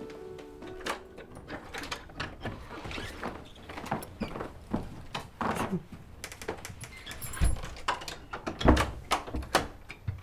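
A string of clicks and knocks from people moving about in a room, with two heavy thumps in the second half.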